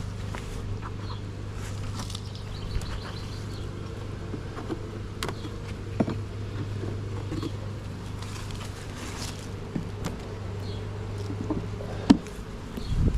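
Honeybees buzzing in a steady hum around an opened hive, with scattered knocks and clicks of wooden hive frames and boxes being handled; one sharp knock about twelve seconds in.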